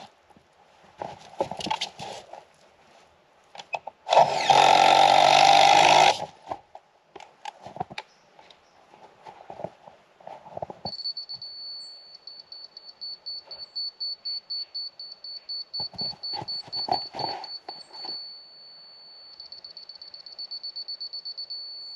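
A power drill runs for about two seconds, with knocks and clicks of handling around it. From about halfway in, a high, steady electronic tone sounds and turns into pulsing beeps, faster near the end.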